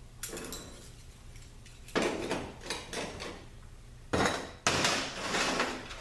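Steel clutch plates from an automatic transmission's clutch drum clinking and clattering as they are handled and set down, with the loudest metal clatters about two seconds in and again around four to five seconds in.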